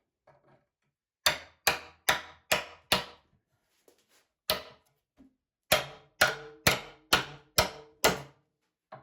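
Hammer blows on a wooden toolbox, knocking apart its nailed and glued boards: a quick run of five strikes, a single strike, then another run of six, each with a short ring.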